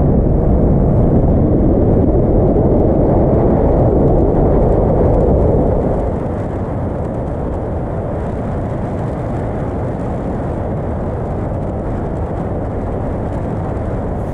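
Wind rush and road noise from a vehicle driving on a highway, picked up by a camera mounted outside on the hood; a steady low noise that drops somewhat in level about six seconds in.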